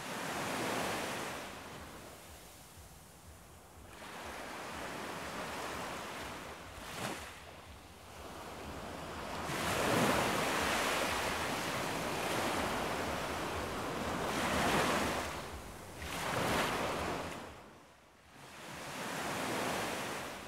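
Ocean waves washing in, swelling and fading in slow surges every few seconds.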